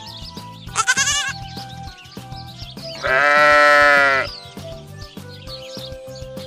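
Sheep bleating twice over light background music: a short, high, quavering bleat about a second in, then a louder, longer, lower bleat about three seconds in.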